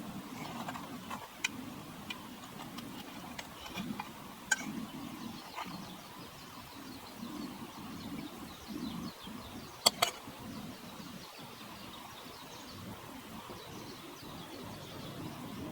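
Quiet outdoor ambience with faint bird chirps and a few sharp clicks or taps, the loudest a quick double click about ten seconds in.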